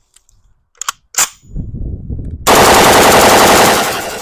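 A Ruger AC556, a factory full-auto Mini-14-type rifle, fires a full-auto burst of Winchester 223 Remington 55-grain FMJ. The burst starts about halfway in and lasts about a second and a half, with echo trailing off after it. Two short sharp sounds come about a second in, before the burst.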